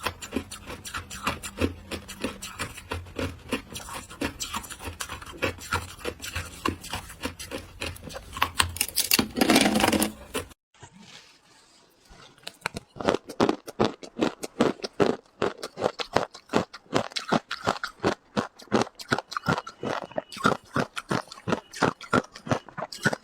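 Close-up crunching of frozen matcha shaved ice being bitten and chewed: a rapid run of crisp crunches, with one louder crunch just before a brief pause a little under halfway through, then the crunching resumes.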